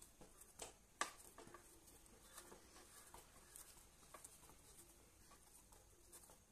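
Faint soft patting and squishing of a hand kneading oiled potato and gram-flour dough in a plastic bowl, with scattered light ticks and one sharper knock about a second in.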